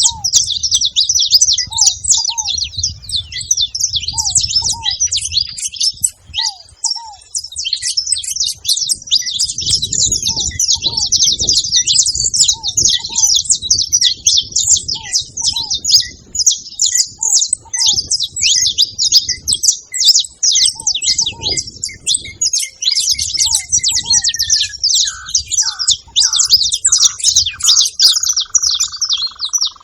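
A group of saffron finches chattering together at a feeding spot: a dense, unbroken stream of high chirps. Under it a lower short call repeats about once a second, and near the end a longer whistle slides down and then holds.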